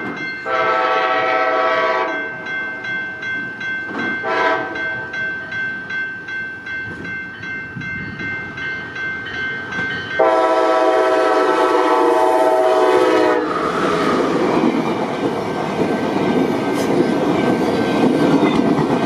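Amtrak Cascades train's Siemens Charger locomotive sounding its horn: a long blast, a short one, then a longer blast of about three seconds, with a bell ringing about twice a second between them. From about 13 seconds in, the wheel and rail noise of the passing train takes over.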